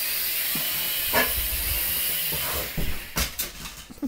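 Small toy quadcopter's electric motors and propellers whirring steadily with a hiss, cutting out a little under three seconds in, followed by a couple of sharp knocks as the quad comes down on the floor.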